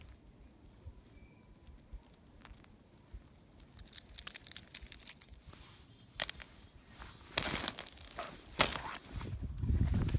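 Ice-glazed grass and snow crackling and crunching in short bursts, with a brittle, high crackle about four seconds in and louder crunches near the end.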